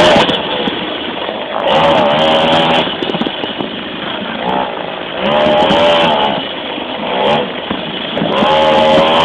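Blata mini moto's small two-stroke engine heard close up from the tank, revving up and dropping back again and again as it is ridden, with three main surges of revs. Wind buffets the microphone in short gusts.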